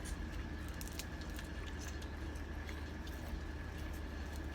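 Faint chewing and mouth sounds of someone eating, with a few soft clicks, over a steady low hum and a faint high whine.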